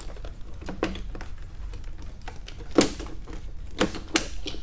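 Scattered plastic clicks and knocks as hands work the wiring connectors and corrugated harness loom on a Ford Escape hybrid battery pack, over a low steady hum. The sharpest knock comes a little under three seconds in, with two more near the end.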